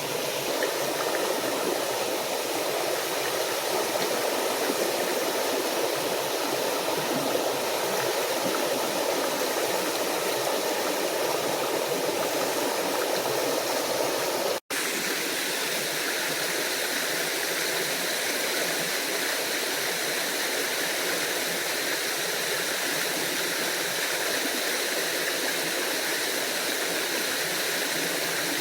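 Small waterfall and stream running water, a steady rushing. It breaks off for an instant about halfway through, then carries on with a slightly thinner tone.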